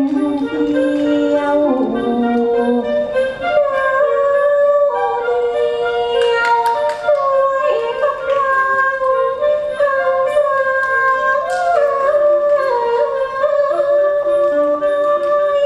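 Orchestra playing Thai-style accompaniment for a Khon dance-drama: sustained melody lines that slide and bend between notes over several layered parts. A few brief bright percussion strikes come about six and eleven seconds in.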